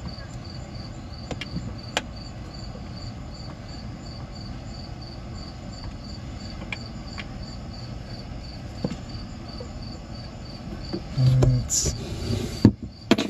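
Insects chirping steadily, about three even chirps a second, with a few light clicks of hand tools on the snowmobile engine. A louder bump and rustle come near the end.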